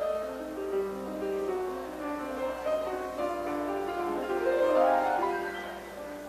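Instrumental background music led by piano, moving in quick runs of notes, with a run that climbs and falls back about halfway through.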